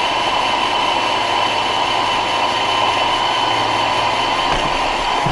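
Roomba robot vacuum running: a steady whir from its motor and brushes, with a constant high whine.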